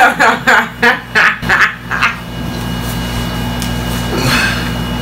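A man's loud, squawking vocal outburst: a quick series of about six short, choppy yells in the first two seconds. After that a steady low hum, with one short soft burst a little after four seconds.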